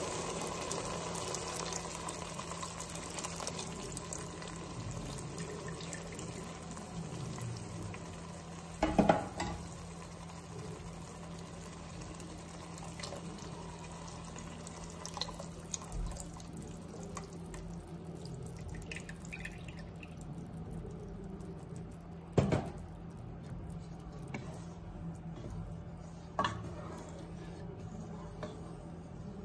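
Coconut milk pouring in a thin stream into a pot of simmering pepper and tomato base, a steady liquid splashing, with three sharp knocks along the way, the loudest about nine seconds in.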